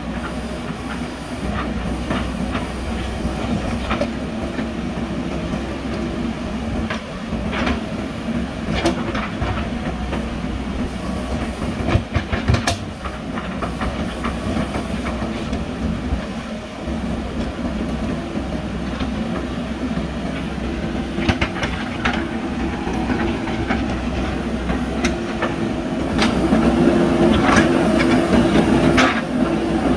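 JCB backhoe loader's diesel engine running steadily, with scattered metallic clanks and knocks from the digging arm and bucket. It grows louder a few seconds before the end.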